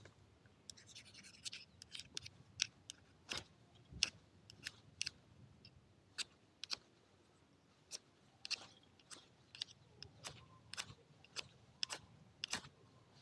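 Wood fire crackling, with irregular sharp snaps and pops, a few a second.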